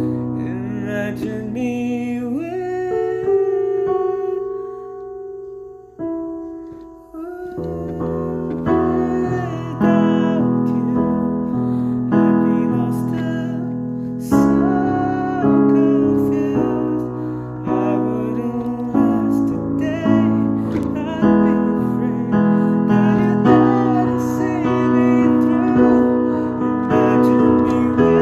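Piano playing slow sustained chords and melody, thinning almost to nothing about six seconds in before fuller chords resume.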